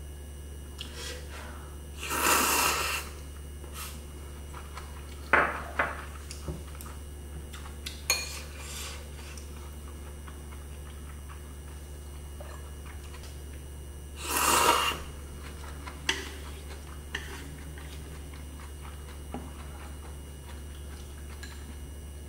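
Eating ramyun noodles with chopsticks: two loud slurps, each about a second long, near the start and again about two-thirds of the way through, with chopsticks clicking against a bowl in between. A steady low hum runs underneath.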